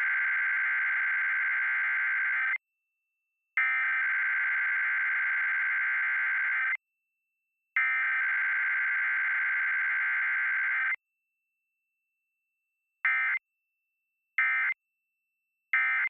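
Emergency Alert System SAME digital header for a Required Weekly Test, a buzzy data screech sent three times in bursts of about three seconds with a second of silence between them. Near the end come three short blips of the same screech: the end-of-message code.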